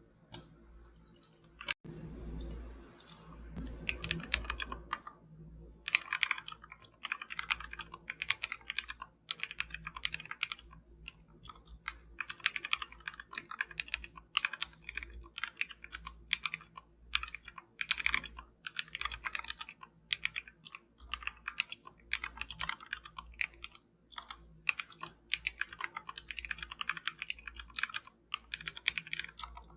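Continuous fast typing on a Royal Kludge RK71 mechanical keyboard fitted with XDA-profile keycaps: a steady stream of keystroke clacks. The first few seconds are softer and duller before the typing settles into an even rapid run.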